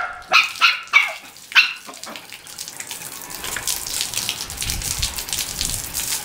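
A dog barks about five times in quick succession over the first two seconds. After that, water from a garden hose splashes and patters steadily onto a person and the wet concrete floor.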